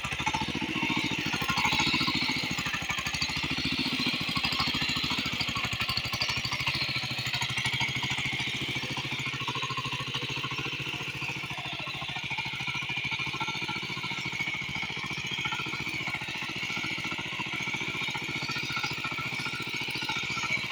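Small tractor's engine running steadily, with a rapid, even pulse of firing strokes.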